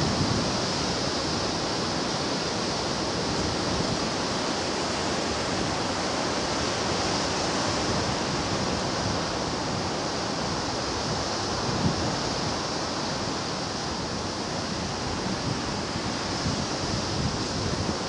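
Sea surf breaking and washing in a steady, continuous rush, with a few brief low thumps of wind on the microphone.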